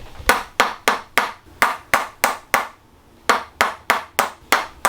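Toksen therapy: a wooden mallet tapping a wooden stick held against the back to loosen a tight joint. Sharp knocks come about three a second in steady runs, with a short pause a little past the middle.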